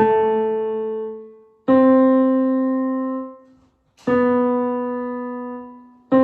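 Piano keyboard playing a tenor 2 choir part one note at a time, in the register just below middle C. About four slow held notes, each struck sharply and fading, roughly two seconds apart.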